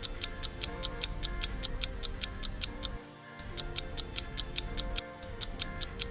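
Quiz countdown-timer sound effect: rapid, even clock ticks at about six a second over a quiet music bed, breaking off briefly twice.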